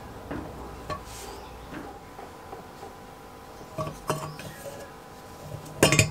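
Brass kerosene stove tank clinking and knocking against its metal stand as it is handled, in a series of scattered small taps with a louder clatter near the end.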